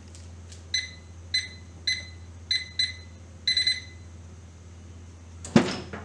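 Keypad beeps from a Whirlpool over-the-range microwave's control panel: about six short electronic beeps as buttons are pressed to set the clock, the last one held a little longer. A knock comes near the end.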